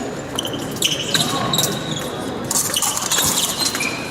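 Fencers' shoes squeaking and thudding on the piste during footwork in an épée bout, several short high squeaks mixed with sharp knocks.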